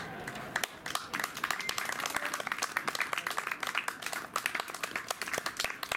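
Small audience applauding, the clapping starting about half a second in.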